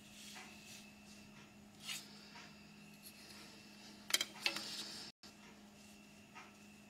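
Plastic ruler and set squares handled on paper: faint rubbing and sliding, with a short clatter of clicks about four seconds in as the instruments are lifted and set down.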